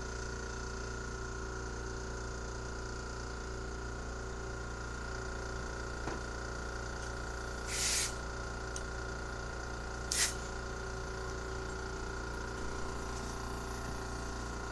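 Air compressor running with a steady drone. Two short blasts of compressed air hiss from a blowgun, about eight and ten seconds in.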